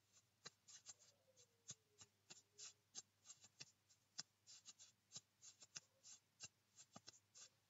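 A faint, irregular run of light clicks and taps, a few each second, with no speech.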